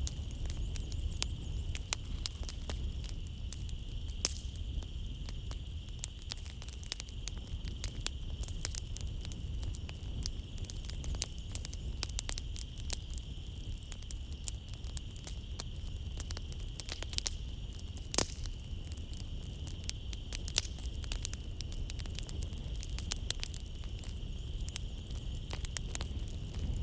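Wood fire crackling in a fireplace: irregular sharp pops and snaps over a low rumble of the flames, with a steady high-pitched drone of night-time nature sounds behind it.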